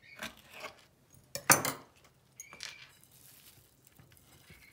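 A few short knocks and clinks of kitchen utensils and dishware, the loudest about one and a half seconds in.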